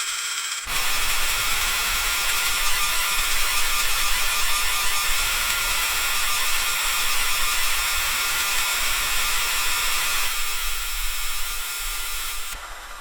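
Freezing rain ticking on a metal roof: a dense, steady crackle of small hits. It grows abruptly louder about a second in and drops back near the end.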